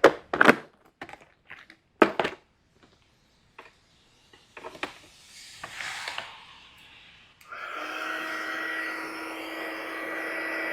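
A few sharp clicks and knocks of handling small parts, then about three-quarters of the way through a small electric heat gun switches on and runs steadily with a fan noise and a faint whine, heating heat-shrink solder connectors on a spliced power cord.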